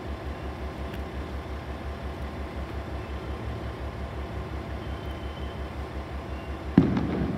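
KiHa 40 diesel railcar's engine idling with a steady low throb, about five or six pulses a second. A single sharp knock comes near the end.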